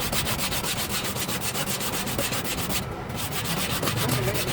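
Hand sanding on a knife: rapid, even back-and-forth strokes, several a second, with a short break about three seconds in.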